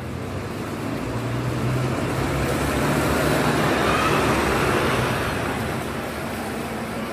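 Double-decker bus pulling away from its stand and driving past close by. The engine hum and tyre noise grow louder, peak about four seconds in as the bus passes, then fade.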